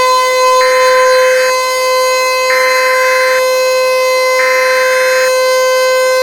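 Three bursts of Emergency Alert System digital header tones, a harsh electronic buzzing, each lasting about a second, about two seconds apart. Under them a steady electronic siren tone drones on without a break.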